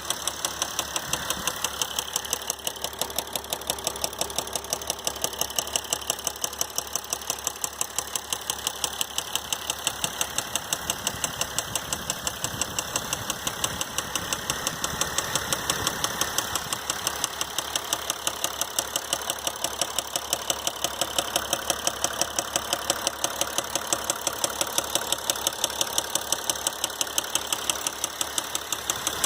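Mercedes GL350's 3.0-litre V6 diesel running steadily with a sharp, even knock, about four a second. This is a gnarly ticking that the owner found to be a failed connecting-rod bearing.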